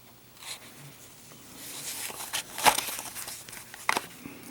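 Soft rustling and handling noise with two light clicks, about two and a half seconds in and near the end, as a lighter and its packaging are handled.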